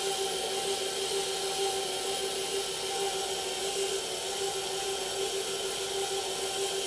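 Electric stand mixer running steadily, its motor humming with a faint regular beat as it mixes flour into cake batter.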